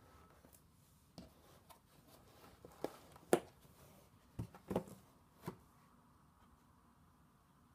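About eight light clicks and taps, irregularly spaced, the sharpest near the middle, over quiet room tone.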